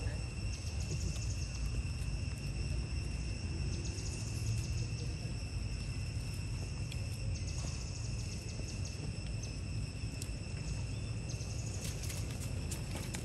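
Steady high-pitched insect drone, with a higher buzzing swell that returns every three to four seconds, over a constant low rumble.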